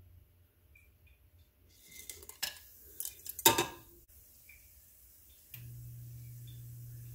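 Whole spices and their plate clattering against a stainless steel pressure cooker as they are tipped into the oil: a quick run of clinks and knocks from about two seconds in, the loudest near three and a half seconds. A steady low hum starts again about five and a half seconds in.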